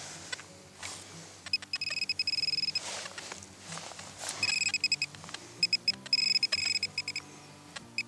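Metal-detecting pinpointer probe beeping in several bursts of rapid high beeps as it is pushed through loose soil in a dig hole, signalling a small metal target: a shotgun pellet. Soft scraping of dirt can be heard as well.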